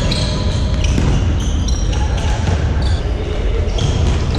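Futsal players' shoes squeaking on a wooden sports-hall floor in many short high chirps, with a few thuds of the ball, over a steady low rumble.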